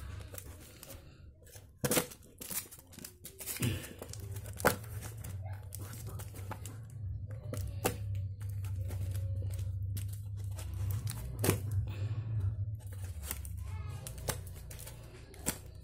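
A parcel's brown packing tape and wrapping being torn open and crinkled by hand, in scattered sharp rips and crackles. A steady low hum sounds under it from about four seconds in until near the end.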